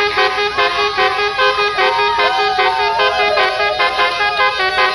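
Basuri musical air horn on a tour bus playing a tune: a fast run of stepped horn notes, loud and continuous, with a few sliding notes about two seconds in.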